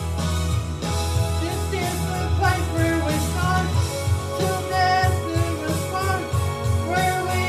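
A woman singing a gospel song over instrumental accompaniment with a steady bass line, holding long sung notes.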